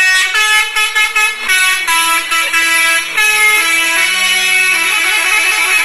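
A truck's musical multi-tone air horn playing a tune, a string of held notes changing pitch every half second or so.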